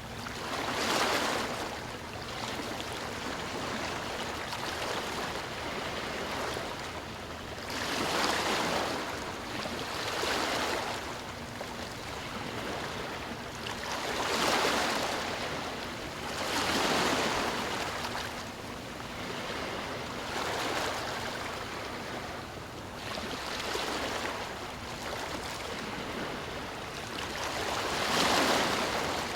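Sea waves breaking and washing up the shore, each wave swelling up and fading away every few seconds over a steady rush of surf.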